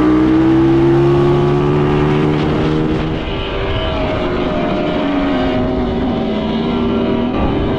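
Quad bike engine under way, its pitch slowly rising, then from about three seconds in a Ninebot electric go-kart's motor whining over wind noise, a lower tone dipping and coming back up near the end.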